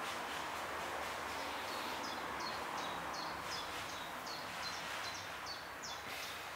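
A small songbird sings a fast string of short, high two-part notes, about three a second, over a steady background rush of distant noise.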